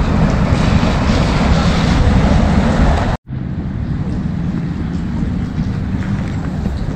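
Steady outdoor rumble of wind on the microphone and distant traffic, heaviest in the low end. It breaks off for an instant about three seconds in and resumes slightly quieter.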